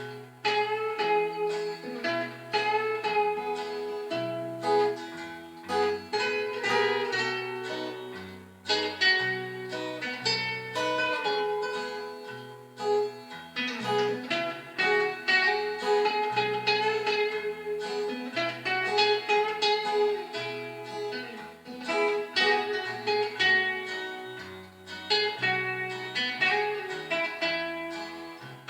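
Instrumental break of a country ballad: guitar picking a melody over a steady bass line, with other plucked strings backing it.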